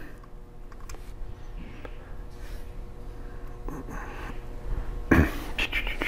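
Faint handling noise and small clicks of a Phillips screwdriver driving screws back into a laptop, over a steady electrical hum, with a sudden short sharp sound about five seconds in.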